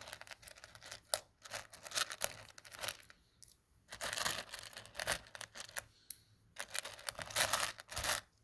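LEGO pieces being handled and rummaged through: irregular plastic clicking and rustling in short clusters, with a couple of brief pauses.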